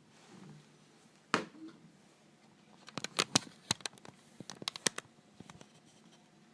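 Hands handling a Siemens MC60 mobile phone, making sharp plastic clicks and taps: a single click a little over a second in, then a quick run of a dozen or so clicks about two seconds later.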